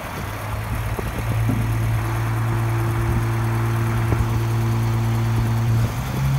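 Diesel engine of a 1998 International tri-axle dump truck running while its hydraulic hoist raises the dump box: a steady low drone that grows louder and firmer about a second in as the hoist takes the load, then steps to a slightly higher pitch near the end.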